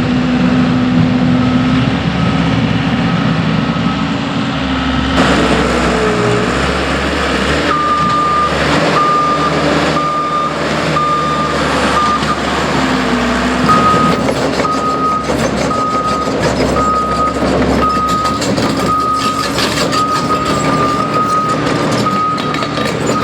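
Diesel engines of heavy construction machines running, with a backup alarm beeping steadily about once a second as a machine reverses, starting about a third of the way in.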